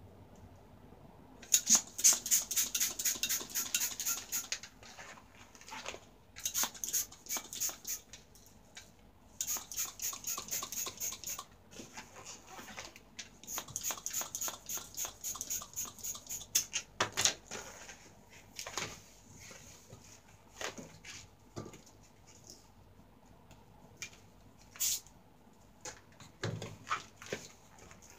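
A long latex modelling balloon being pumped up with a hand pump and handled, giving bursts of rapid squeaky rubbing and air noise. After the middle the sounds thin out to scattered squeaks and clicks.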